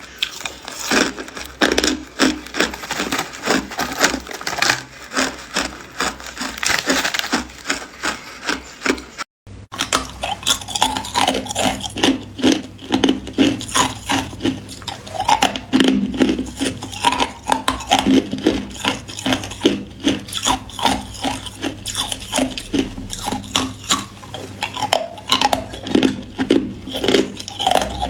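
Hard clear ice being bitten and chewed close to the microphone: rapid, dense crunching and grinding that breaks off for a moment about nine seconds in, then continues as more separate crunches.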